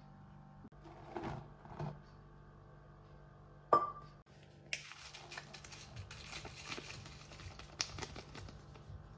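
Kitchen handling sounds: a little rustling, then a single sharp clink of a dish just under four seconds in, followed by several seconds of dense crinkling and scraping.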